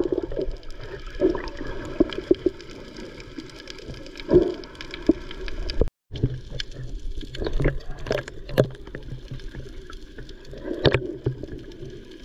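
Water heard from just below the surface: muffled sloshing and gurgling with many small clicks and knocks. There is a brief total dropout about six seconds in.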